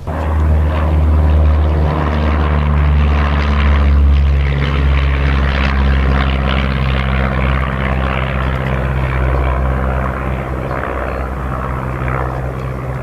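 Light single-engine propeller airplane at full takeoff power: a loud, steady engine and propeller drone that starts suddenly and eases slightly as the plane lifts off and climbs away.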